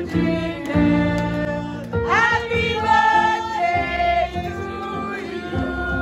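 Music with singing voices: a melodic song at a steady level, notes gliding and changing every half second or so.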